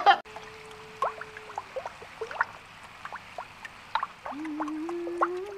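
Water dripping and gurgling in short rising plinks, under a soft held note that fades out early on and a second, wavering held note that comes in about three-quarters of the way through.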